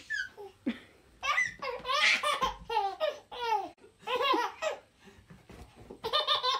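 Toddler laughing in a series of high-pitched giggles and squeals, with a quick run of laughs near the end.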